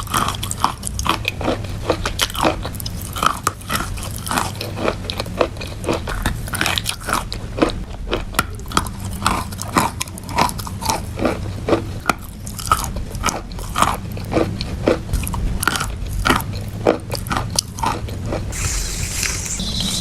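Close-miked mouth biting and chewing wet chalk: a dense run of irregular wet crunches, several a second, with a short hiss near the end.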